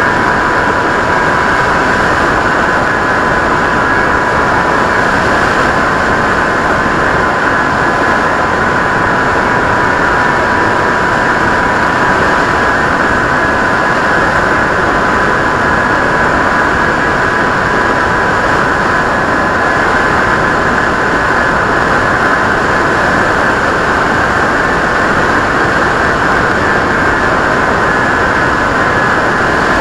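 Skywalker RC plane's electric motor and propeller running at a constant throttle: a steady whine over a rush of wind noise.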